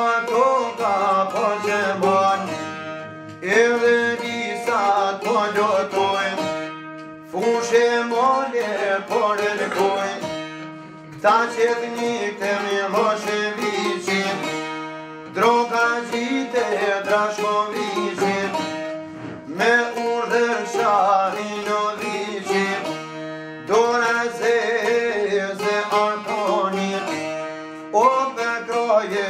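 Two çifteli, Albanian long-necked two-string lutes, plucked in a repeating phrase that begins again about every four seconds. A man sings an Albanian folk song over them.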